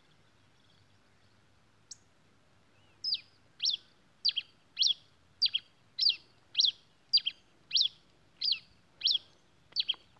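Caged grey pileated finch singing: after one faint note, a regular run of about a dozen sharp, downward-slurred notes begins about three seconds in, nearly two a second, some of them doubled.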